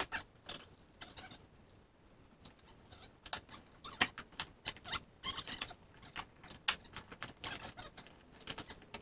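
Plastic door-panel retaining clips being pried and worked loose: a run of irregular sharp plastic clicks and crackles, thicker in the second half.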